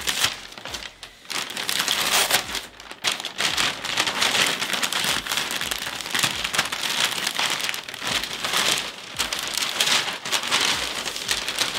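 White packing wrap crinkling and rustling as it is pulled and unwound by hand from a wrapped gig bag, with short lulls about one and three seconds in.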